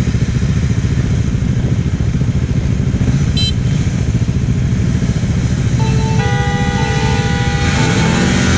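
Motorcycle engines idling close by with a steady low chugging. A short high horn toot sounds about three seconds in, and from about six seconds several horns hold steady tones together, with engines starting to rev near the end.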